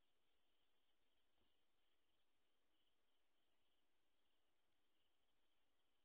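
Near silence: faint outdoor ambience with a steady high insect hum and a few faint, short high chirps, one cluster about a second in and another near the end.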